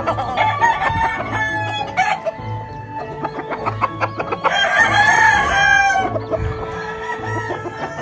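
Gamefowl rooster crowing once, a long call about halfway through that is the loudest sound, with chickens clucking around it.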